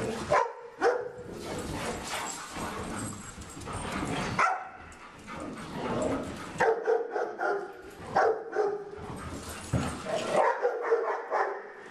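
Dogs barking on and off during rough group play. The barks come in short clusters, thicker in the second half.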